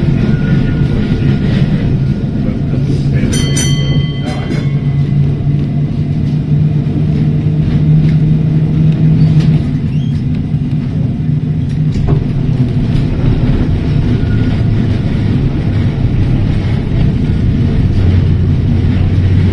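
Heritage electric tram running along the line, a steady low drone of motors and wheels on rail whose pitch rises and falls with speed. About three seconds in there is a brief high ringing tone.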